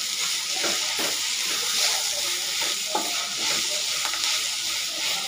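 Amman pacharisi leaves, shallots and spices sizzling in oil in a pan, stirred with a spatula. A steady sizzle, with the spatula scraping and knocking against the pan now and then.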